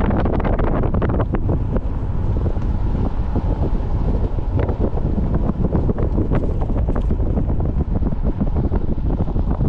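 Strong wind buffeting the microphone: a loud, continuous low rumble with constant crackling pops from gusts hitting the mic.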